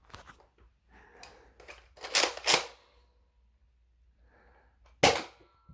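Handling clicks and sharp knocks from a Nerf Rival blaster being loaded and fired at a wooden Jenga tower. There are two louder knocks about two seconds in and a single sharp crack about five seconds in.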